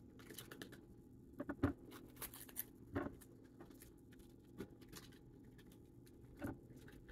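Bell peppers being pulled apart and cored by hand: faint, crisp snapping and tearing of the pepper flesh, with a few light knocks of pieces set down on a cutting board, the loudest about one and a half and three seconds in.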